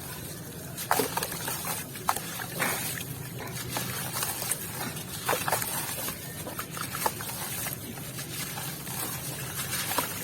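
White cement with grains, partly wet, being crumbled and crushed, giving irregular crunchy crackles and a few sharp snaps over a steady hiss.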